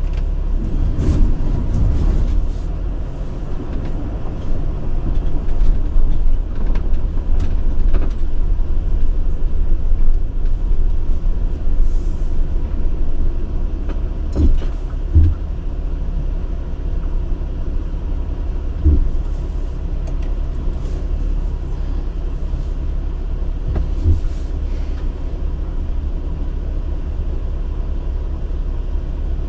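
Sprinter van driving: a steady low road-and-engine rumble with occasional bumps and knocks.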